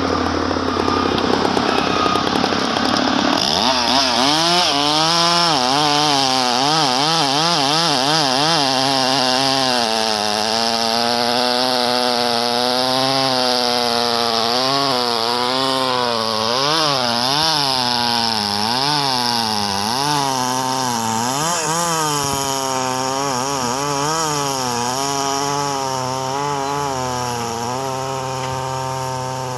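Husqvarna chainsaw cutting through a tualang log, its engine pitch rising and falling continually as the bar bites and eases in the wood. For the first few seconds, before the saw starts, an engine runs steadily.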